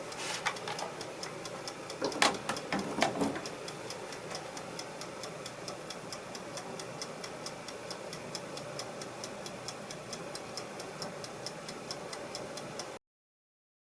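Steady, even ticking at about five ticks a second over a faint steady hum, with a few louder clicks in the first few seconds; the sound cuts off suddenly near the end.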